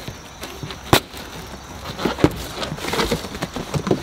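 Stapled cardboard shipping box being torn open and pulled apart by hand: crackling, rustling cardboard with two sharp snaps, one about a second in and one just past two seconds.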